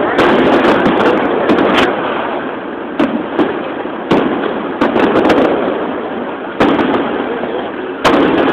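Aerial fireworks shells bursting in a display: sharp bangs about a second apart, each followed by a long rolling rumble that carries into the next.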